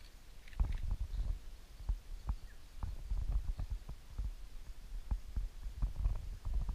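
Irregular low thumps, rumbles and clicks, a few a second: handling and wind noise on a GoPro camera's microphone.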